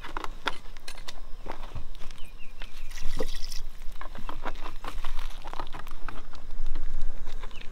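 Water poured from a plastic gallon jug into a pot of stew, dribbling and splashing, with scattered clicks and knocks of handling.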